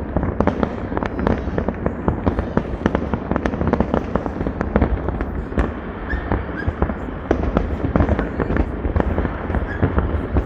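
Fireworks going off in a dense, continuous barrage: many sharp bangs and cracks every second, with no let-up.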